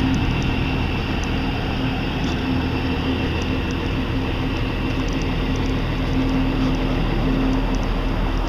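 Car driving slowly: a steady engine hum under continuous road noise.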